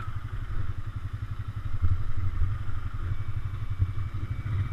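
ATV engine running as the quad rides along a dirt trail, a low rapid pulsing exhaust note that swells a little about two seconds in and again near the end.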